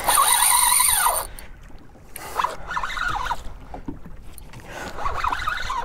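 Spinning fishing reel working against a large fish: a loud, high buzz of line going out through the drag for about the first second, then quieter, irregular sounds of the reel being cranked.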